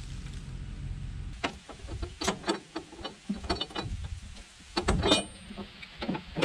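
A steady low hum that stops about a second and a half in, followed by a run of sharp metallic clicks and clanks, some with a brief ring.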